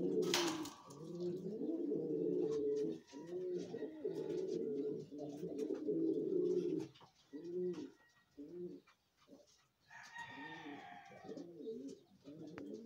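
Domestic pigeons cooing in a loft: a long run of low, rolling coos that breaks up into short separate coos about halfway through. A sharp knock sounds just at the start.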